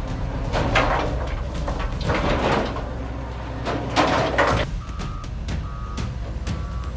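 Heavy diesel machinery running with a steady low rumble, broken three times by loud bursts of rushing noise. From about five seconds in, a vehicle's reversing alarm beeps steadily, a little more than once a second.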